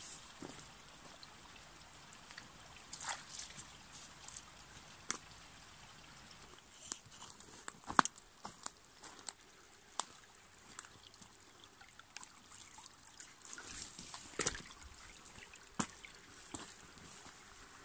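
A shallow woodland stream trickling, with irregular crunching and snapping footsteps on twigs and mud, the sharpest about eight seconds in.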